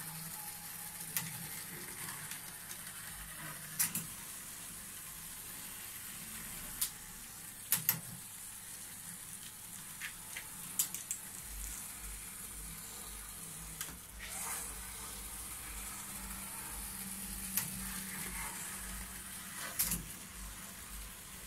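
Model train running on the layout's track: a steady faint hiss and low hum, with sharp clicks every few seconds.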